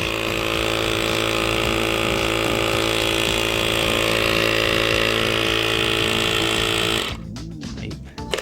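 Electric air pump running steadily and loudly while inflating an electric kick scooter's rear tyre, then switched off about seven seconds in.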